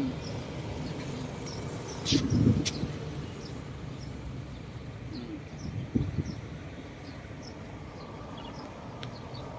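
Outdoor street ambience: a steady low rumble of traffic, with small birds chirping now and then. Two brief louder bumps, about two seconds in and near six seconds.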